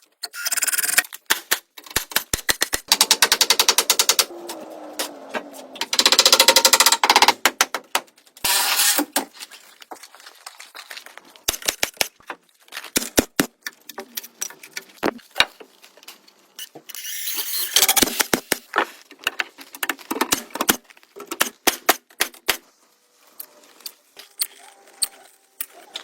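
Bursts of rapid, sharp clicking or rattling, each lasting a second or two, with scattered single clicks between them.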